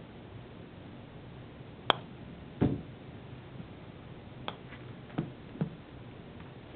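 A sharp click of a putter striking a golf ball about two seconds in, followed less than a second later by a louder, duller thud as the ball knocks into something at the end of its roll. A few fainter clicks and knocks follow.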